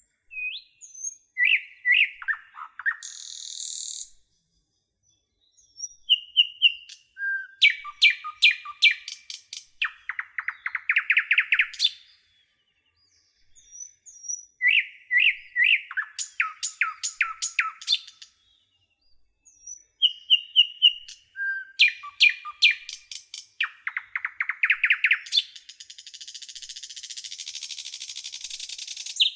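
Nightingale singing: varied phrases of fast repeated notes, whistles and trills, with short pauses between them. A hissy high trill comes near the end.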